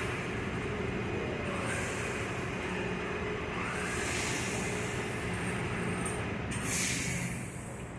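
Steady low mechanical hum of an idling engine, with a few short hisses of air over it, the clearest about seven seconds in.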